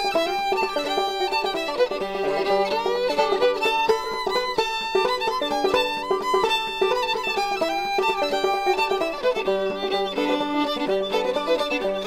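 Background music led by a fiddle, with quickly changing notes over other instruments.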